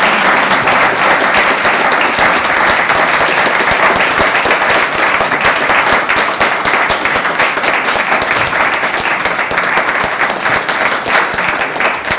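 Audience applauding, a dense, steady round of clapping from a roomful of people that begins to fade near the end.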